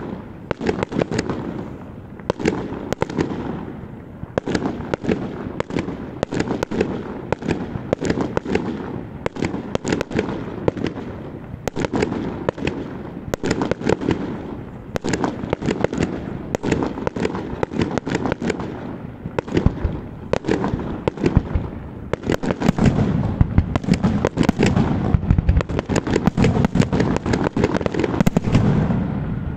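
Fireworks display: a continuous run of sharp bangs from bursting aerial shells, several a second. The bangs grow denser and heavier in the last quarter.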